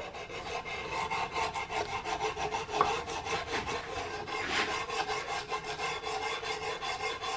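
Sandpaper wrapped around a flat file rubbing in quick, even back-and-forth strokes on a wooden rifle stock. This is light hand-sanding to take out file marks before the stock is stained.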